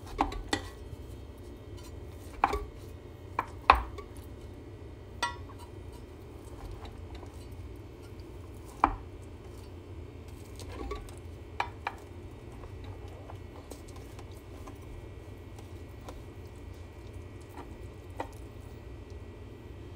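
Wide metal spatula cutting a portion from a casserole and knocking and scraping against its glass baking dish: about ten scattered sharp clinks, the loudest in the first few seconds, over a steady low hum.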